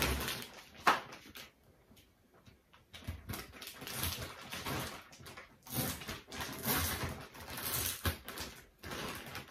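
Clear plastic vacuum storage bag rustling and crinkling in the hands as its zip seal is pressed shut with a slider clip, with a few sharp clicks.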